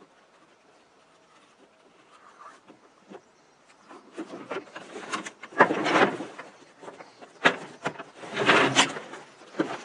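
Nylon MOLLE rucksack and its webbing straps being handled and pulled free of the pack frame: fabric rustling with scattered clicks of plastic buckles and hardware. It is faint for the first few seconds, then louder in two spells, around the middle and near the end, with a couple of single sharp clicks.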